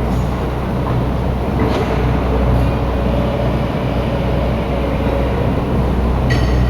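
Heavy diesel machinery running steadily at a constant low drone, with a faint whine in the middle and a short metallic clink that rings briefly near the end.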